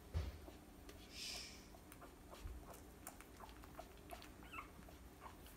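Week-old Cocker Spaniel puppies nursing: a few faint, high squeaks in the second half, over soft clicking and rustling. A low thump just after the start and a short hiss about a second in.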